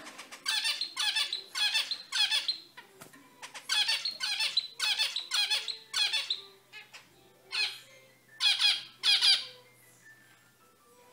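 Zebra finch calling, a series of short, nasal, squeaky calls in three quick bursts of about four each.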